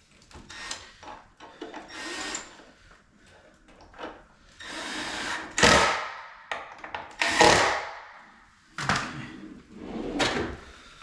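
Work sounds at a wooden vanity cabinet while the last door handle is fitted: a run of scrapes and knocks, with three louder swelling scrapes in the second half, each ending sharply.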